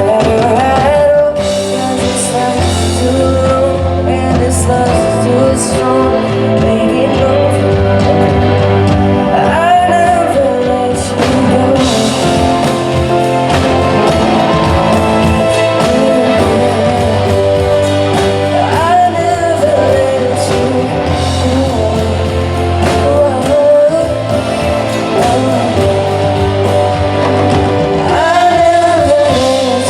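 A live pop band playing a song through the stage PA at a sound check: a lead singer's voice over held bass notes, guitar and drums.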